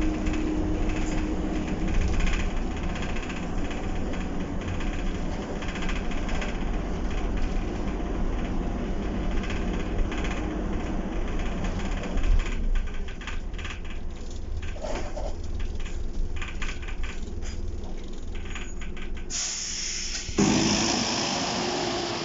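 Optare Solo single-deck bus in motion, heard from inside the cabin: a steady mix of engine and road noise, a little quieter after about twelve seconds. About two seconds before the end it changes suddenly to the same bus heard from outside, its engine running as it pulls away.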